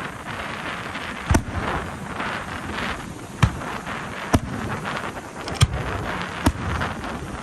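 Fireworks going off: five sharp bangs at uneven intervals over a steady rushing background.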